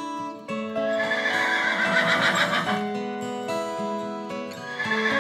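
A horse whinnying: one quavering call of about two seconds starting about a second in, and another beginning near the end, over background music.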